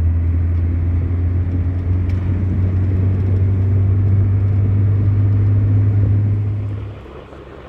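Car engine running with a steady low drone, dropping away sharply about seven seconds in.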